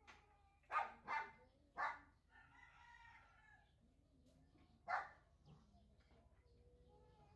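Faint animal calls: three short calls in quick succession run into a longer, weaker drawn-out call, and one more short call follows about five seconds in.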